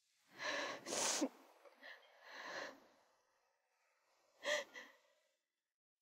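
A person's breathy sighs and exhales, several in a row: two close together near the start, a longer one around two and a half seconds in, and a short sharp one about four and a half seconds in.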